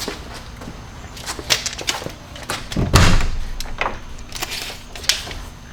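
Sharp clicks and knocks from handling the fold-out step assembly and tools against the truck's underside, with one heavier thump about three seconds in.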